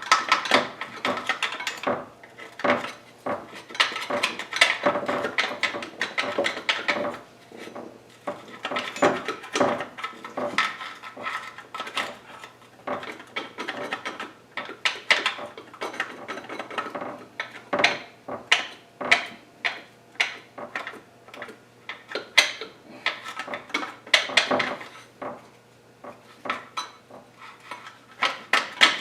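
Metal hand tools clinking and clanking against engine parts: an irregular run of sharp taps and knocks with short metallic ringing, in places coming in quick clusters.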